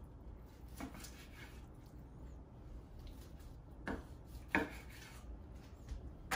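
Long knife cutting smoked brisket into cubes on a wooden cutting board, the blade knocking on the board four times, the loudest a little after halfway.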